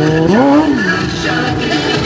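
Sport-bike engine revving up sharply and dropping back once, about half a second in, over loud music.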